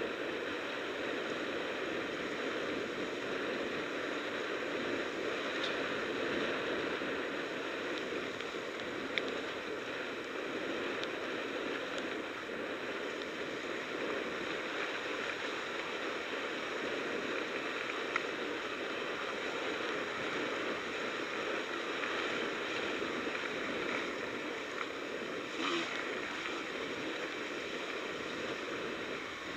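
Enduro quad riding along a dirt track, its engine and the rush of wind and rough ground blended into one steady muffled rushing noise, with a few brief knocks.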